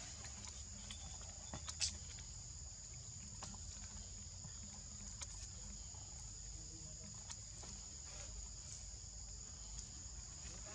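Insects calling steadily in two high, even tones, over a low rumble, with a few faint clicks, the sharpest about two seconds in.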